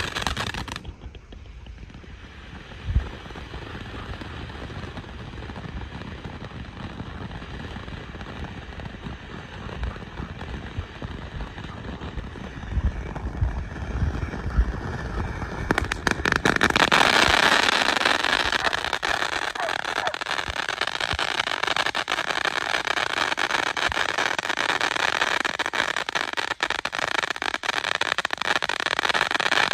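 Ground fountain firework hissing steadily as it sprays sparks, with a single thump a few seconds in and crackling around the middle. The hiss grows louder and fuller over the second half.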